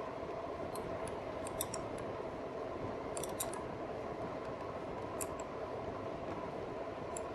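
2018 RadMini electric fat-tire bike ridden at a steady speed: a steady whine from its hub motor over tyre and road noise, with a few faint, sharp ticks.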